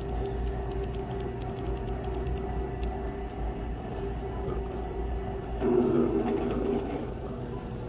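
Electric motor of a motorized store shopping cart humming steadily as it drives over the floor, with a low rumble underneath. The sound swells briefly about six seconds in.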